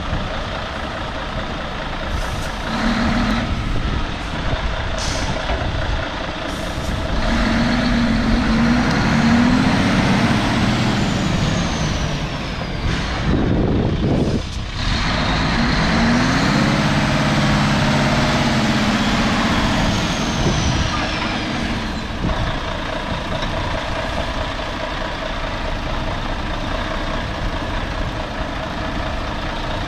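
Mercedes-Benz Actros 8x4 dump truck's diesel engine running, its engine speed rising and falling twice. A sharp hiss of compressed air from the air brakes comes between the two rises.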